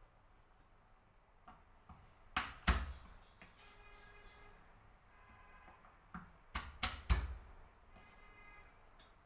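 Dull kitchen knocks from garlic being smacked and handled: a couple of sharp hits about two and a half seconds in, then a quick cluster of three or four near seven seconds.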